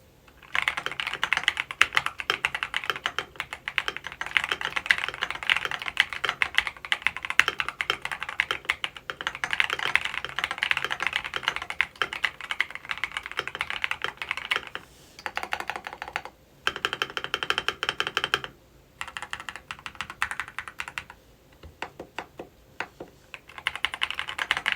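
Fast, continuous typing on an Epomaker EK68 65% mechanical keyboard fitted with Epomaker Flamingo switches and double-shot PBT keycaps: a dense stream of key clacks. It pauses briefly a couple of times past the middle and thins to sparser keystrokes near the end.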